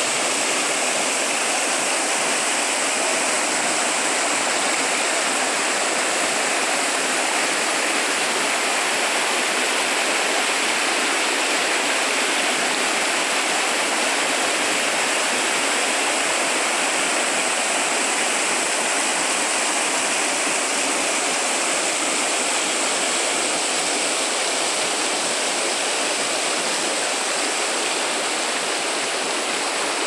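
Salgado River water rushing steadily over rock ledges and through narrow rock channels in small cascades: an even, unbroken rush, mostly high in pitch.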